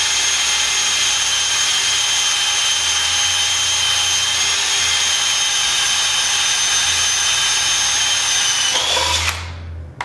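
Electric drill with a 5/32-inch bit running at a steady high whine as it bores a pilot hole for a handrail bracket screw; it slows slightly and stops about nine seconds in.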